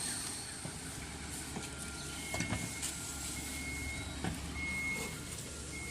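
A vehicle's reversing alarm beeping about once a second, starting about two seconds in, over a low, steady engine hum.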